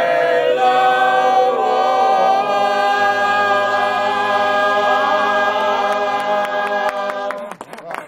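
A group of men and women singing the long, held final chord of a folk song with an accordion; the low part shifts about three seconds in. The chord stops about seven and a half seconds in, followed by a few sharp clicks.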